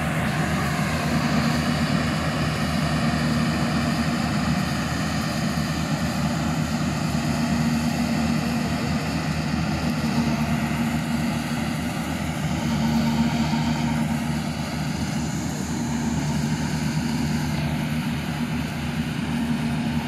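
Yanmar YH700 rice combine harvester running steadily as it harvests standing rice, a continuous engine drone at a constant pitch.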